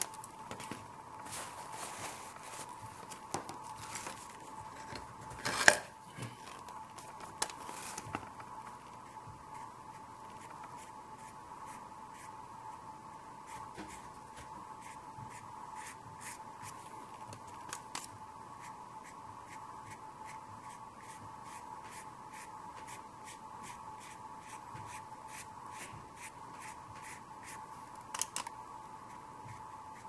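Paintbrush working acrylic paint around a foil-lined tray and then stroking it onto paper: soft scratchy brush strokes and foil crinkles, busiest in the first few seconds, with a sharp louder knock about six seconds in. A steady hum runs underneath.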